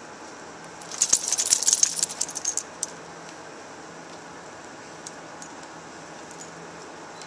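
Small metal pieces on a dog's collar and leash jingling in a quick clatter for about two seconds, starting about a second in, then a few faint clinks.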